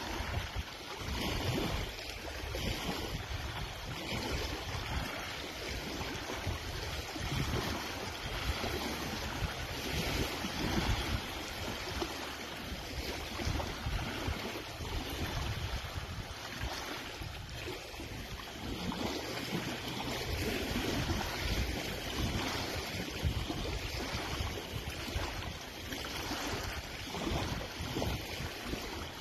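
Wind gusting on a phone's microphone, with small waves lapping at a rocky lakeshore.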